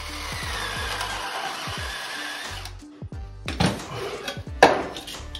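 Cordless drill with a hole saw boring partway into the back of a sheet of gypsum board, a steady grinding that stops after about two and a half seconds. After it come a few knocks and scraping as the drywall dust is brushed off. Background music plays under it.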